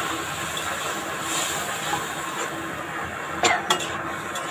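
Cubed papaya and pointed gourd sizzling in hot oil in a wok while being stir-fried down with ginger-cumin paste. A few quick clinks of the spatula against the pan come about three and a half seconds in, and again near the end.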